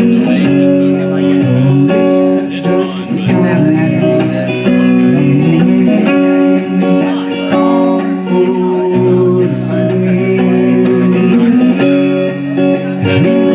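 Guitar music played live, held chords changing every second or two with no break.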